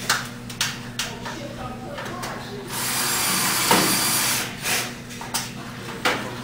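Cordless drill driving a self-drilling screw into the fixture channel: one run of about two seconds starting nearly three seconds in, dropping in pitch partway through, with a few sharp clicks and knocks of handling before and after.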